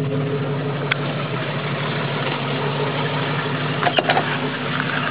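Jeep Cherokee engine idling steadily. A sharp click comes about four seconds in as the door is opened, with a fainter click about a second in.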